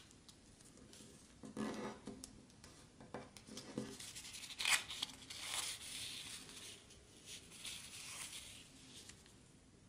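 A sheet of origami paper being folded and creased by hand: faint rustling and crinkling with several brief scrapes, the loudest about halfway through.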